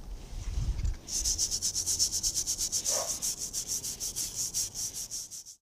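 A scrub brush scrubbed back and forth over a rusty cast iron part wet from a vinegar soak, in quick scratchy strokes of about eight a second; the brushing is taking off rust the vinegar has loosened. It starts after about a second of handling and stops abruptly near the end.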